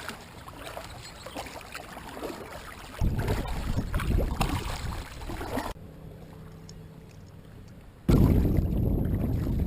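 Water rushing and splashing along the hull of a Hobie Tandem Island sailing kayak under way, with no speech. The sound comes in short pieces with sudden changes: two stretches, about three seconds in and near the end, are much louder, with a heavy low rumble.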